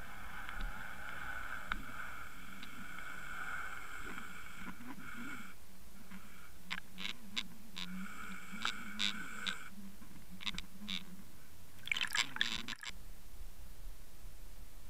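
Underwater noise picked up through an underwater camera's housing on a jigging line: a steady whine at several pitches over a watery hiss, which stops about halfway through and briefly returns. It is followed by a string of sharp clicks and, about twelve seconds in, a short burst of rattling.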